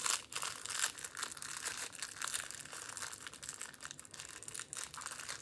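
Plastic wrapper crinkling and tearing as a squishy toy's package is pulled open by hand, with continuous rustling and small crackles.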